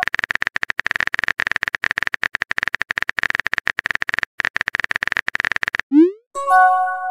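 Rapid clicking of a phone-keyboard typing sound effect, running about six seconds with a brief break, then a quick rising pop and a short chime as a new text message appears.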